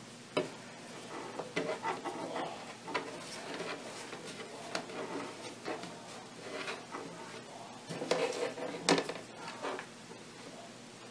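Paracord rustling and sliding as it is pulled through the weave and tightened by hand, with irregular small clicks and knocks of handling on the desk, loudest about eight to nine seconds in.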